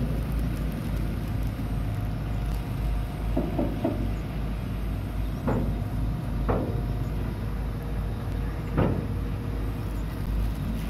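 Hitachi Zaxis 130 amphibious excavator's diesel engine running steadily as its boom and bucket move, with several short squeaks about a third of the way in, around the middle and near the end.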